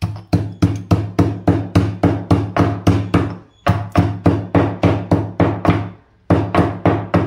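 Pestle pounding crab with black pepper, cumin and coriander seeds in a mortar: rapid, even strikes about five a second, each with a low ringing thud, in three runs with two short pauses.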